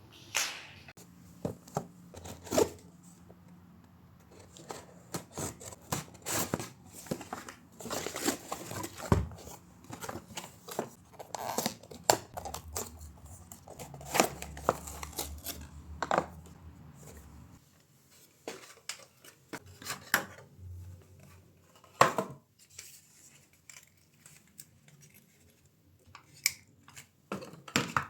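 Parcel packaging being cut open with scissors and torn by hand, with irregular snips, tearing and crinkling of paper or plastic, busier in the first half and sparser later.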